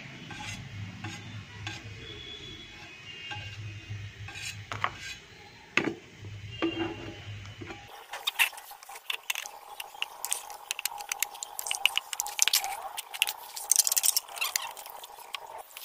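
Paint containers being handled: a few knocks over a low hum, then from about halfway a dense run of clinks and scrapes. Near the end, thinner is poured from a plastic bottle into a bucket of putty.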